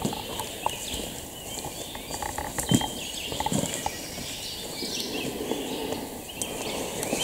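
Woodland songbirds chirping and trilling, with footsteps crunching through leaf litter and undergrowth, a few louder steps a little under three seconds in and again around three and a half seconds.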